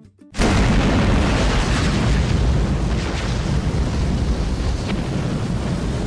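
Explosion sound effect: a sudden blast about a third of a second in, turning into a long, dense fiery rumble heavy in the bass that slowly fades.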